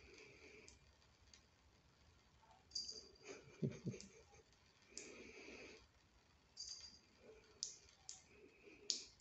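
Faint, scattered wet clicks and smacks of a cat licking at a thin trickle of water from a tap, coming in short irregular bouts.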